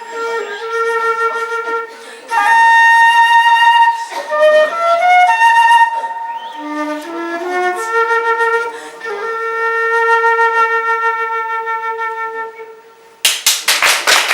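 Flute playing a slow melody of long held notes, winding down to the end of the piece. About a second before the end, applause breaks out.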